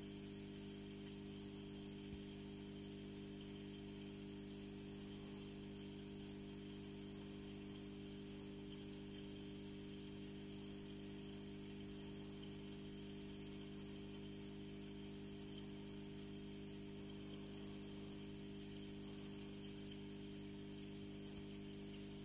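Home aquarium equipment running: a steady hum from the pump or filter with an even hiss and fizz of moving water and bubbles.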